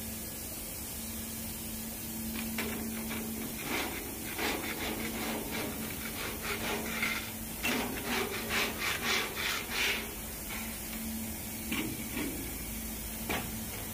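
Paintbrush on a long pole brushed back and forth over rough, rusted steel, a scratchy scrubbing stroke repeated about three times a second; the strokes come in bursts and are loudest around the middle. A low steady hum sits underneath until about halfway.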